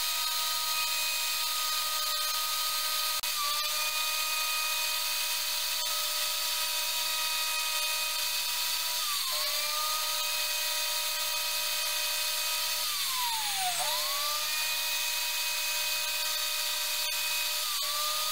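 Electric router running at high speed with a steady whine as its bit cuts along the rim of a wooden bowl. The pitch sags briefly four times as the bit bites harder into the wood, the deepest dip about three-quarters of the way through, and each time it climbs back to full speed.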